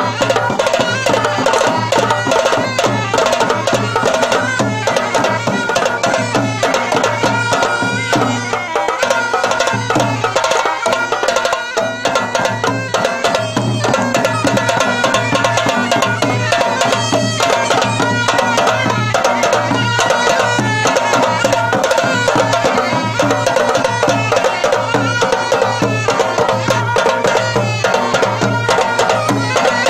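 Traditional Hunza folk dance music: a steady, repeating drum beat under a held melody line. The drum eases off briefly about nine seconds in, then picks up again.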